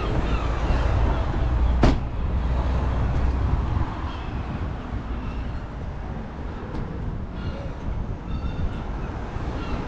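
Street noise heard while walking: a low rumble that is heaviest for the first few seconds and then eases, with a single sharp knock about two seconds in.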